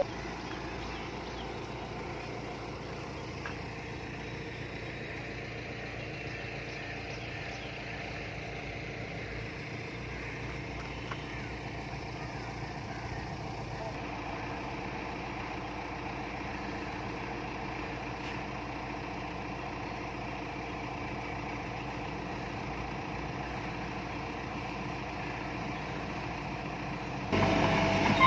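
Diesel engine of a construction machine running steadily at low revs. It gets abruptly louder near the end.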